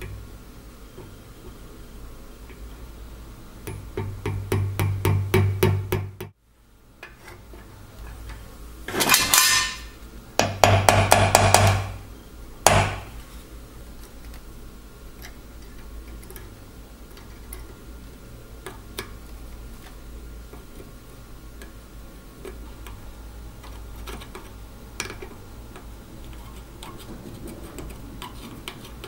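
Small hammer tapping a metal pin into a wooden board: a run of quick light strikes growing louder, then a few shorter bursts of blows about halfway through.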